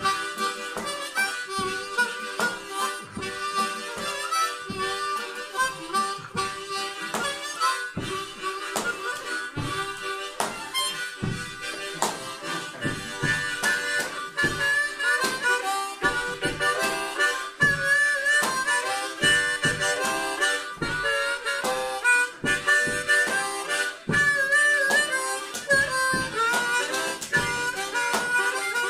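Blues harp (diatonic harmonica) playing a blues line: a rhythmic chugging of short breathy chords under single notes that waver and bend.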